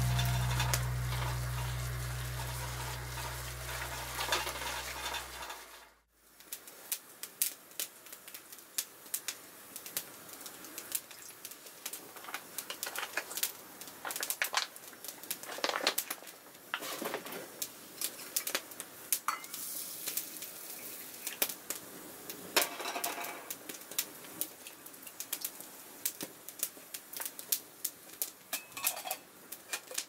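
Background music fading out over the first few seconds, then many light clicks, clinks and knocks of stainless steel camp pots, cups and lids being handled and set down.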